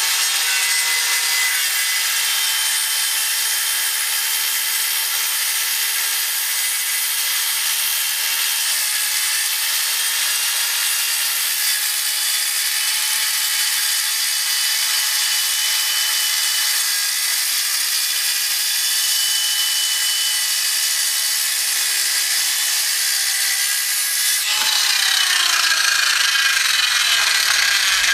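Handheld Chicago Electric circular saw running steadily and cutting through plywood, a continuous high whine. Near the end the sound gets rougher and its pitch drops.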